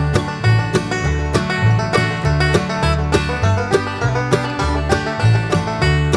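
Background music: a quick, steady run of plucked notes over a changing bass line, in a country or bluegrass style.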